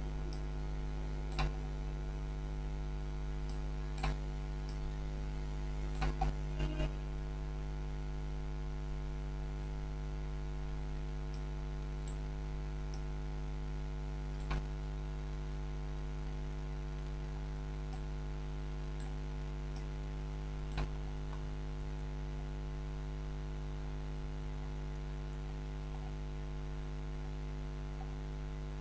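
Steady electrical mains hum in the recording, with a few sharp clicks: one about a second and a half in, one at four seconds, a quick cluster of four around six seconds, then single clicks near fifteen and twenty-one seconds.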